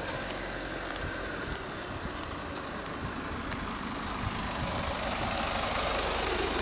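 City street traffic: a steady road-vehicle noise that grows louder over the last two or three seconds as a vehicle draws near.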